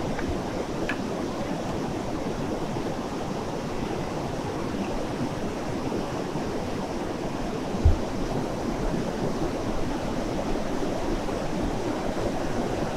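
Steady rush of a fast-flowing mountain river, with a single low thump about eight seconds in.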